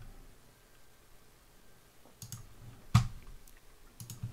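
A few computer mouse clicks in the second half, the loudest about three seconds in.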